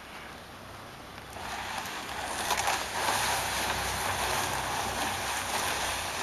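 A blue plastic barrel dragged on a rope across arena sand behind a walking horse. It gives a steady scraping rush that starts about two seconds in and keeps going.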